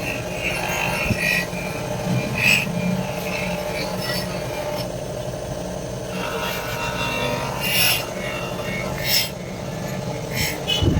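Irregular rasping scrapes of an abrasive tool on a metal blade, over a steady low hum.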